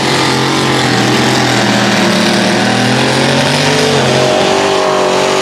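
Mud truck's engine running hard at high revs as the square-body Chevrolet pickup races around a dirt track, a loud steady note whose pitch changes about four seconds in.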